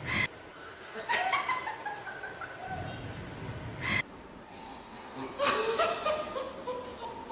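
People laughing and chuckling in several short spells, without words.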